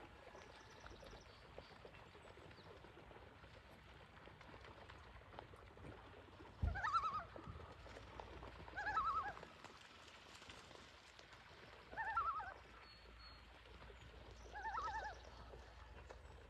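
Common loons giving the tremolo (laughing) call: four short, quavering calls two to three seconds apart, the first with a low thump as it starts.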